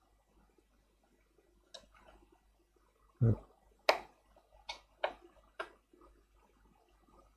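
Scattered sharp clicks and one dull knock from a tool working at the cheap tablet's plastic casing and edge piece: a dull knock a little after three seconds in, a loud sharp click just after it, then three lighter clicks in quick succession.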